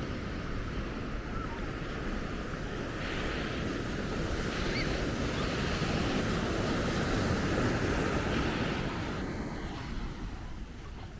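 Ocean surf washing onto a sandy beach, the wash swelling a few seconds in and easing toward the end, with wind buffeting the microphone.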